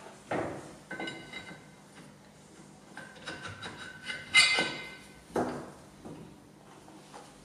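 Metal clanks and knocks as a thick aluminium deck plate is slid over the studs and seated on a Subaru EJ25 engine block. Several clinks ring briefly, and the loudest comes about four seconds in, with duller knocks soon after the start and about five seconds in.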